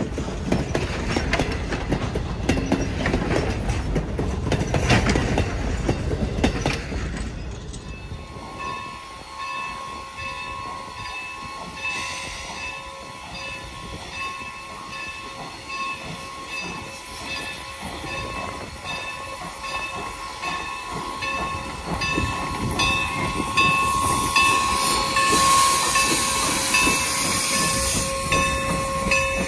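A Norfolk & Western steam train going by: loud rumble and clatter of the wheels for the first seven seconds or so, then quieter with a steady ringing tone. Steam hisses briefly about twelve seconds in and again more loudly near the end.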